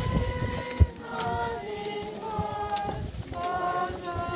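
A group of mourners singing together in long held notes, over the knocks and scrapes of a pick and shovel working rubble, with one sharp knock just under a second in.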